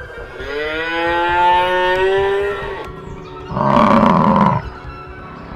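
A cow moos once, a long call gently rising in pitch. About a second later a bison gives a shorter, louder bellow.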